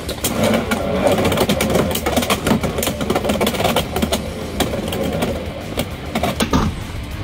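Two Beyblades, Nightmare Longinus and a Lightning L-Drago fitted with an Xtreme driver, spin and collide in a plastic Beyblade X Xtreme stadium. The result is a dense, rapid rattle of clicks and knocks as the tops grind along the stadium's toothed rail and strike each other.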